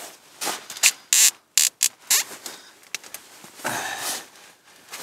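A cracked wood-core touring ski being handled and flexed by hand, its splintered wood fibres at the break rubbing: a string of short scraping and rubbing noises over the first two seconds or so, then a longer one about four seconds in.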